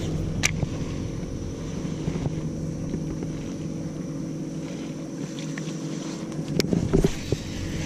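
Bass boat's electric trolling motor humming steadily, with a few sharp clicks about half a second in and again near the end.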